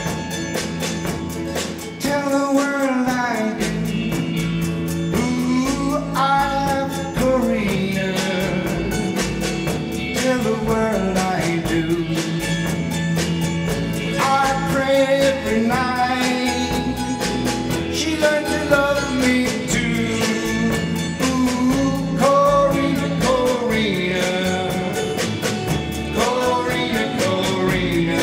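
A live band playing a song: a man singing lead while strumming an acoustic guitar, with electric guitar and a drum kit keeping a steady beat.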